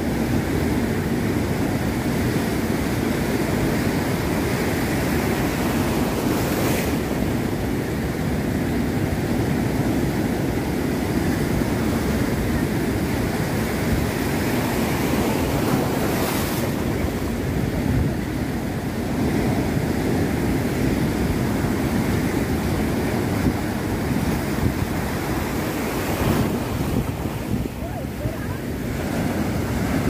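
Rough Mediterranean surf breaking and washing over stone breakwater blocks, with a continuous rush of water and wind buffeting the microphone.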